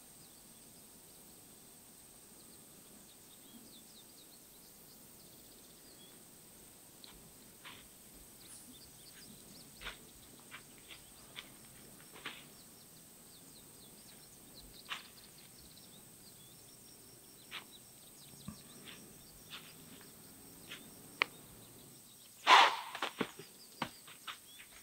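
Sporadic short crackles and snaps over a quiet outdoor background, growing more frequent, with a louder cluster of snaps about 22 seconds in.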